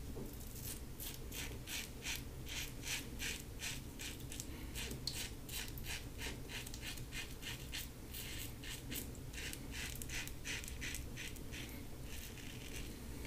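LASSCo BBS-1 stainless steel safety razor with a Gillette Silver Blue blade rasping through two days of stubble, in quick short strokes about three a second. Faint.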